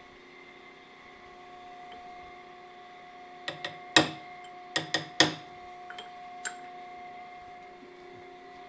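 Hammer blows on a steel punch held against a camshaft to straighten a bent shaft: a quick run of sharp metallic strikes with a short ring, the loudest about four seconds in, then two lighter taps. A steady machine hum runs underneath.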